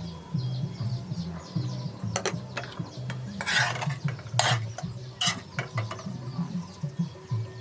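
A metal utensil scraping and clinking against a cooking pot, several separate strokes, over soft background music.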